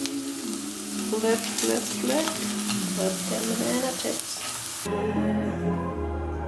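Banana slices sizzling and crackling in oil in a frying pan, with a spatula scraping and turning them, over background music. About five seconds in the sizzle cuts off and only the music, with singing, goes on.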